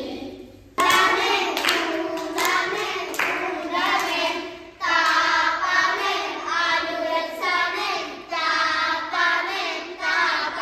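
A group of young children singing a song together, with a few hand claps in time, spaced a little under a second apart, during the first few seconds.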